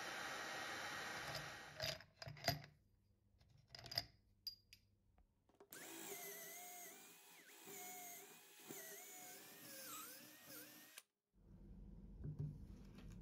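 An electric drill with a twist bit boring into a wooden block; the motor's pitch dips and recovers several times as the bit bites in. Before it, a vacuum runs for about two seconds and stops, followed by a few sharp clicks.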